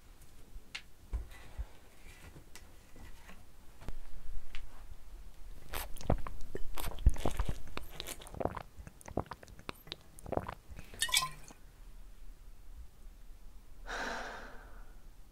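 A person drinking straight from a glass bottle: scattered clicks and knocks of handling and swallowing through the middle, then a breathy exhale near the end.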